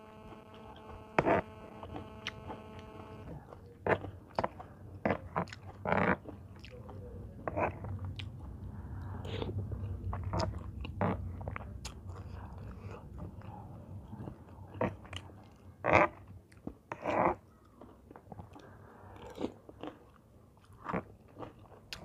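Close-miked eating: a person chewing a seafood papaya salad with crunches and irregular wet mouth clicks and smacks.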